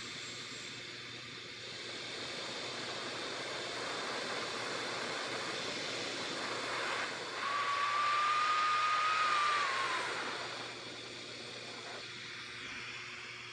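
Surface-mix glassworking hand torch burning with a steady hiss. The hiss grows louder from about two seconds in, a thin whistle joins it for a couple of seconds in the middle, and then it drops back.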